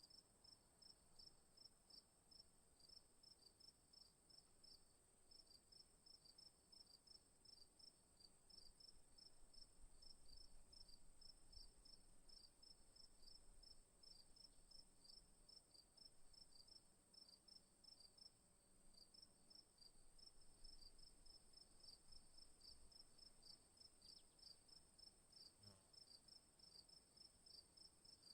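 Faint night insect chorus: crickets chirping in an even rhythm, a few chirps a second, over a continuous high-pitched trill from other insects.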